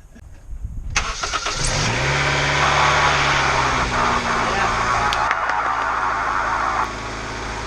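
1999–2001 Honda CR-V's 2.0-litre four-cylinder engine firing up about a second in, revving up and then running steadily, settling lower near the end. It starts now that a new ignition coil has cured its weak spark.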